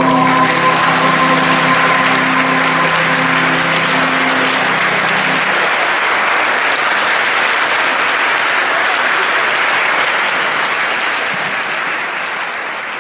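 An audience applauding as a mixed choir holds its final chord. The chord ends about five seconds in, and the applause goes on alone, fading near the end.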